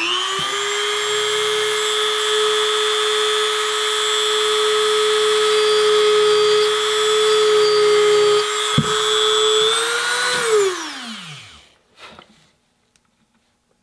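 Dremel rotary tool spinning up and running with a steady high whine while cutting a small relief. About ten seconds in, its pitch briefly rises, then the tool winds down and stops.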